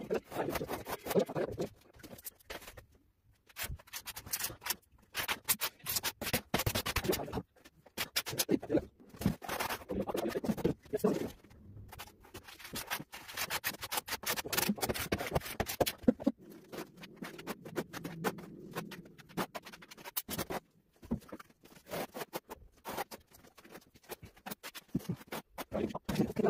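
Notched steel trowel scraping and spreading tile adhesive across a ceiling in irregular runs of strokes, with short pauses between them.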